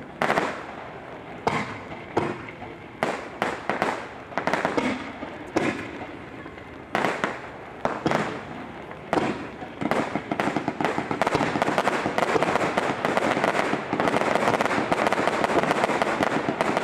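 Aerial fireworks going off: separate sharp bangs every second or so, giving way about ten seconds in to a dense, continuous crackle of rapid reports that grows louder near the end.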